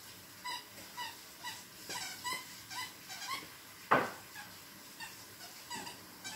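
Squeaker inside a plush moose toy squeaking in short, rhythmic squeaks, about two a second, as a poodle puppy chomps on it. One much louder sharp squeak or snap comes about four seconds in, then a few more squeaks near the end.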